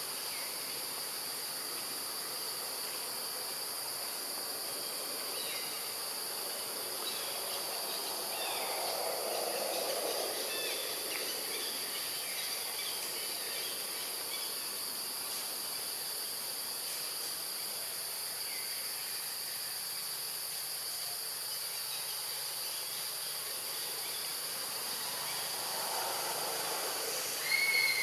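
Steady high-pitched drone of forest insects, with faint scattered chirps and a brief louder high call near the end.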